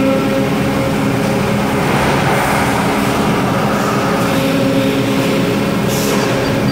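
Radio static from a Pioneer car stereo's tuner as its knob is turned between stations, played through the toolbox speakers: a steady hiss with a constant hum underneath.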